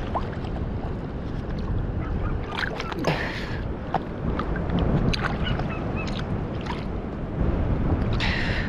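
Wind rumbling on the microphone over sloshing lagoon water, with a louder splash about three seconds in and another near the end.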